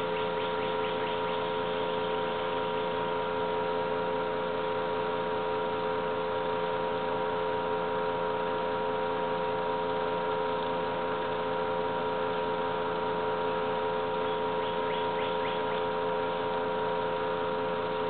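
A steady mechanical hum holding several even tones, unchanged throughout, over a faint background hiss.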